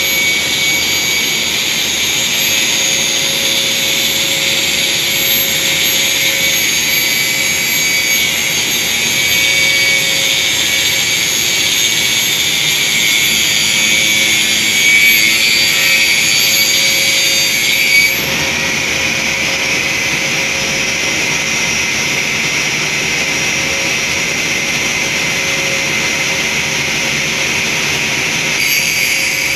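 Angle grinder with a sanding disc running with a steady high whine as it grinds the face of an engine valve being refaced, the valve turned by the rig's motor. The tone shifts about eighteen seconds in and shifts back near the end.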